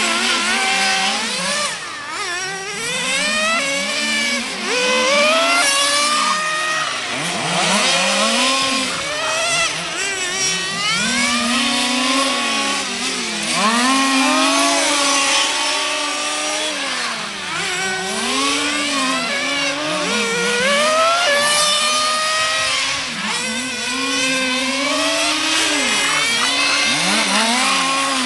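Small two-stroke petrol engines of 1:5-scale radio-controlled racing cars, revving up and down. Several engine notes overlap, each rising and falling every second or two as the cars accelerate and brake.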